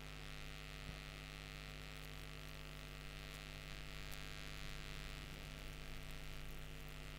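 Steady low electrical hum with a faint hiss over it, the background noise of the recording chain between narration.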